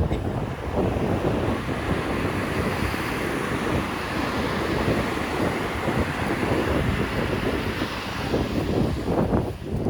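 Strong wind buffeting the microphone over the steady rush of heavy ocean surf, a dense low rumble throughout.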